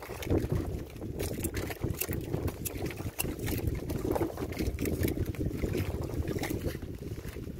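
Wind buffeting the microphone over water lapping at a small wooden outrigger boat, with irregular light clicks and rustles as a fishing handline is hauled in hand over hand.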